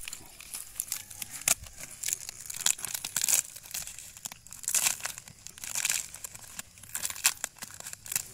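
Dry and green palm leaves rustling and crackling as they are handled and squeezed into a bundle and bound with cord to make a smoke torch, in irregular swishes with several louder crinkles.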